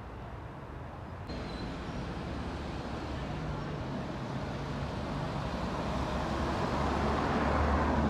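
Outdoor road-traffic noise, a steady rumble and hiss that grows gradually louder as a vehicle draws near.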